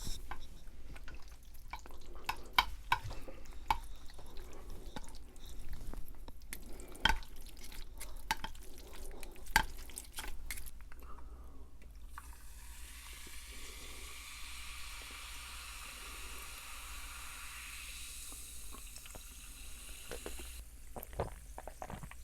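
Chopsticks mixing black-bean sauce through a bowl of jjajangmyeon noodles, with wet, sticky stirring and scattered clicks of chopsticks against the bowl. About halfway through it gives way to a steady hiss lasting about eight seconds, and then the clicking returns.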